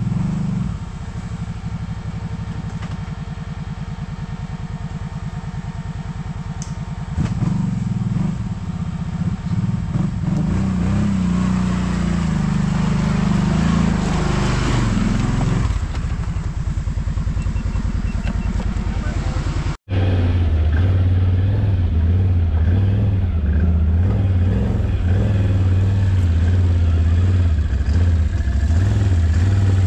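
ATV engine running under load on a steep trail climb, its revs rising and falling over the middle of the stretch. About two-thirds of the way through, the sound cuts abruptly to a louder, steadier engine drone.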